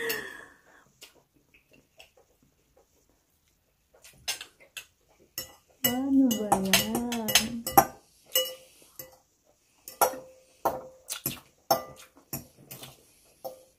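Metal cutlery clinking and scraping against plates and a glass bowl in short, irregular clicks. About six seconds in, one drawn-out vocal sound from a person wavers up and down in pitch for about two seconds.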